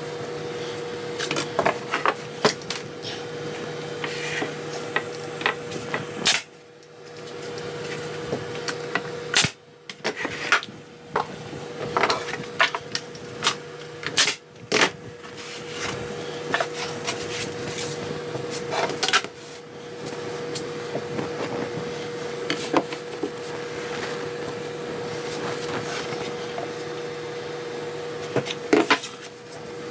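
Scattered knocks and clatter of wooden pieces being handled and set down on a workbench, over a steady machine hum.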